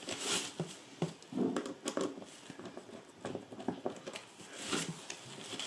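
Rustling of a suitcase's fabric liner with scattered small clicks and taps as a hand screwdriver works a screw into a handle's mounting bracket, the screw being jiggled to find its thread.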